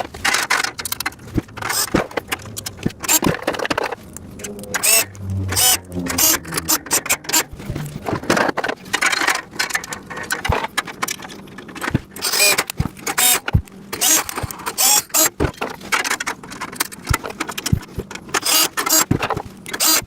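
Irregular clattering, clicking and knocking of parts-rack pieces and bins being handled and fitted together during assembly, with sharp knocks coming every fraction of a second to every second or so.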